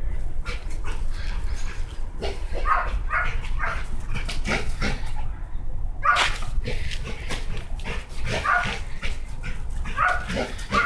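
An American Staffordshire terrier giving repeated short barks and yips as it runs about, over a steady low rumble.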